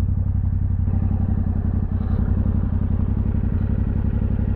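Yamaha Ténéré 700's 689 cc parallel-twin engine running steadily at an even, unchanging speed.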